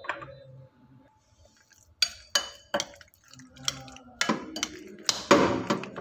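Metal spoon stirring penne in a thick white sauce in a glass bowl, clinking and scraping against the glass. Quiet for the first couple of seconds, then scattered clinks that grow busier and louder near the end.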